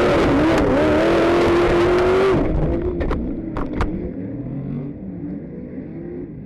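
Dirt-track racing truck's engine running at high revs amid loud noise through the crash. About two and a half seconds in the loud noise cuts off abruptly, a few sharp knocks follow, and a lower, uneven engine rumble remains.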